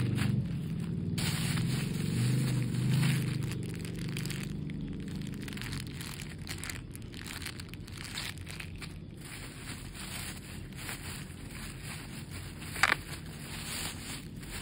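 Plastic bubble wrap crinkling and rustling as hands handle and unwrap it, with one sharp crack near the end. A low background rumble is loudest in the first few seconds.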